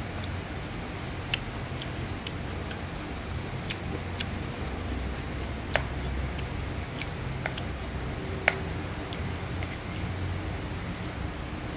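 Metal spoon stirring fried rice in a nonstick frying pan, scraping and clicking against the pan at irregular moments, with the sharpest clicks about a second in, midway and about two-thirds through. A steady low hum runs underneath.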